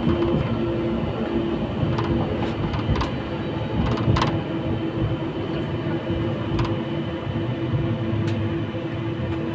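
A 71-911EM low-floor tram heard from inside the car as it runs along the track: a steady electric drive whine over the rumble of the wheels, with a few sharp clicks about two, three, four and six and a half seconds in.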